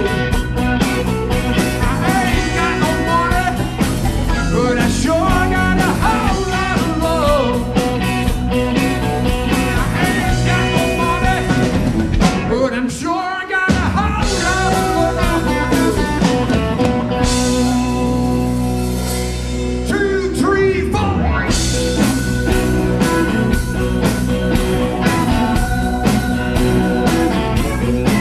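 Live rock band playing a blues-rock song: a man singing over electric guitar, bass, keyboard and drums with a steady beat. The band cuts out for a moment about halfway through, then comes back in.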